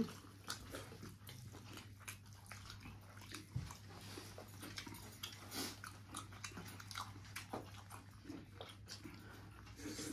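Close eating sounds: people chewing a meal of curry, roti and rice, a run of faint, irregular wet smacks and small clicks over a steady low hum.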